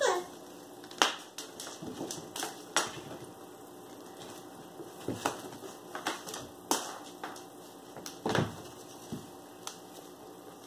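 Irregular light taps and clicks, a dozen or so at uneven intervals, with a short falling squeak right at the start and a duller, deeper thump about eight seconds in.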